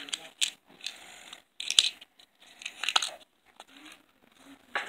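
Plastic toy horse figurines handled and moved about on a floor: scattered taps, scrapes and rustles, with a sharp tap a little under two seconds in.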